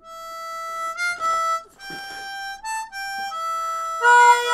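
Harmonicas playing: a simple run of held single notes stepping up and down in pitch, with a louder held note from another harmonica joining near the end.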